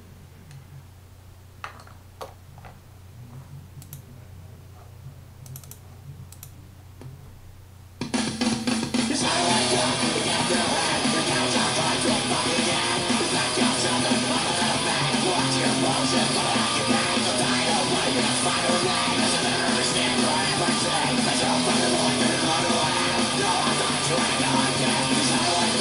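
A few faint clicks, then about eight seconds in, loud hardcore punk music with distorted electric guitar starts suddenly and keeps going.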